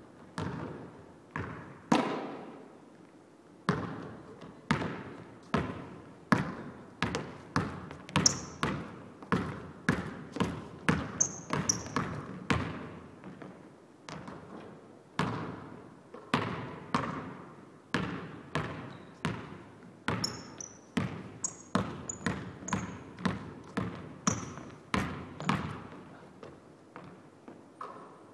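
Basketball bouncing on a hardwood gym floor, dribbled and later bouncing loose, with about one or two bounces a second, each echoing through the large empty hall. A few short high squeaks fall in between.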